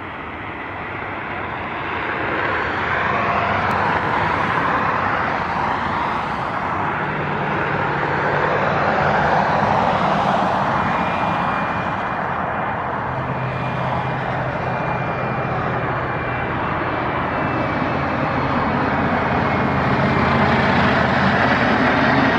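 Twin-engine business jet on approach with its gear down. Its turbofans make a steady jet rush with a thin high whine and a low hum, swelling over the first couple of seconds and growing a little louder near the end as it comes closer.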